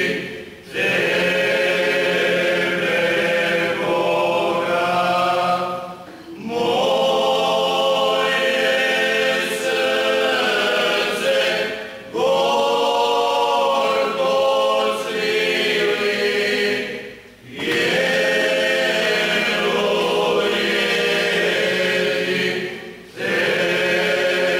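Male vocal group singing a Lenten church hymn a cappella, in long held chords with a short breath pause between phrases about every five to six seconds.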